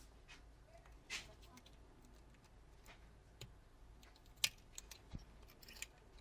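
Faint scattered clicks and short scrapes of a small tool prying at a glued part inside a phone, with a brief scrape about a second in and the sharpest click about four and a half seconds in.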